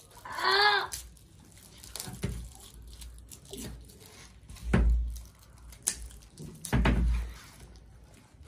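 Small cardboard juice boxes knocking and thumping on a tabletop as they are nudged, tipped and picked up, with the two loudest thumps about five and seven seconds in. A child gives a brief high-pitched squeal about half a second in.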